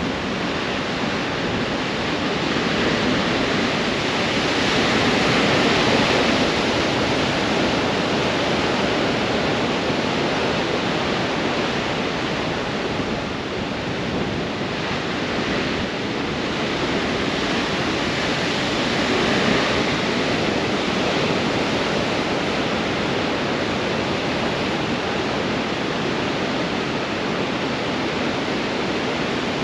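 Heavy ocean surf in strong wind: a dense, steady rush of breaking waves and white water pouring off rocks, swelling louder about five seconds in and again near twenty seconds.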